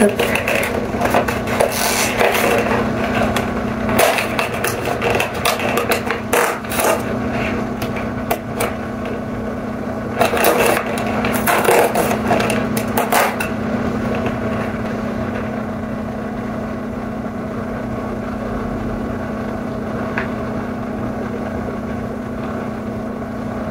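Cardboard advent-calendar box and its packaging handled and opened by hand: a run of scrapes, rustles and clicks for about the first dozen seconds, then only a steady background hum.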